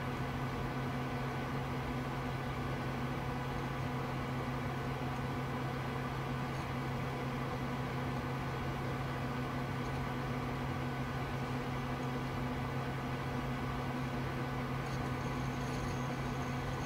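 Steady whir and low hum of an old Socket 7 desktop PC running, its fans and power supply going at an even level.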